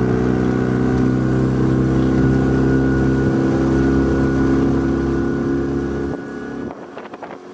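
A small rental motorboat's engine running steadily at open throttle as the boat speeds up out of a no-wake zone. Its sound drops off sharply about six seconds in.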